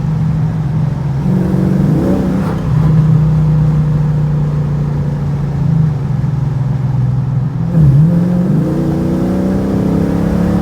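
Cammed 6.4-litre (392) HEMI V8 with long-tube headers and a 3-inch exhaust, heard from inside the car's cabin while driving: a steady engine note. About eight seconds in the pitch dips briefly, then rises as the engine picks up revs.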